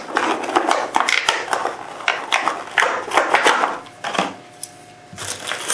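Stiff clear plastic blister packaging crackling and clicking as it is pried open and a scope mount is pulled out of it. It goes quieter about four seconds in, with a few more clicks near the end.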